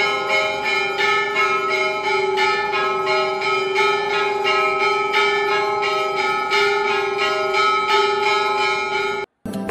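Temple bells rung continuously for aarti: quick repeated strikes, about three a second, with their ringing tones overlapping and sustained. The ringing cuts off abruptly shortly before the end.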